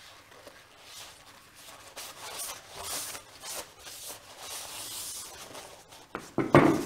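Cloth wiping over a PTFE pump diaphragm, a run of soft rubbing strokes as its sealing face is cleaned. Near the end come a few sharp knocks as the diaphragm is set down on a wooden bench.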